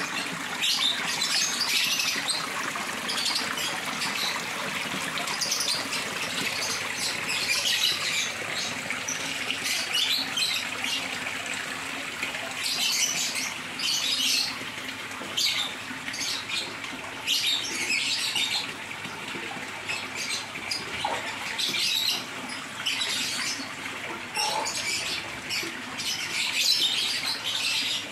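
A flock of small parrots chattering in a dense run of short, high chirps over the steady sound of running water.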